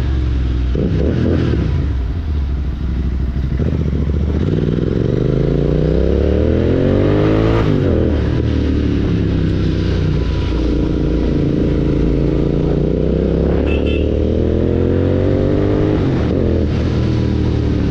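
Royal Enfield Continental GT 650's 648 cc parallel-twin engine through an aftermarket Red Rooster Stellar exhaust with its dB killer removed, ridden under power. The engine note climbs in pitch, drops sharply about eight seconds in, climbs again, and drops once more near the end, like a bike pulling through the gears.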